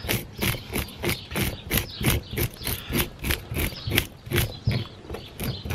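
Hand fish scaler raked repeatedly along a kahawai's side, a rasping scrape about three strokes a second as the scales come off.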